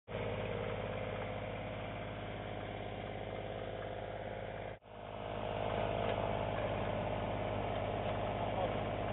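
Small portable petrol generator running steadily. The sound drops out for a moment about halfway through, then carries on.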